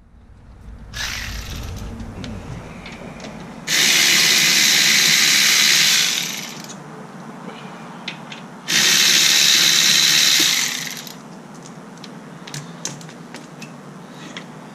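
A power tool run in two bursts of about two seconds each, backing out the rear brake caliper bolts, with light clicks and knocks of tool handling between and after.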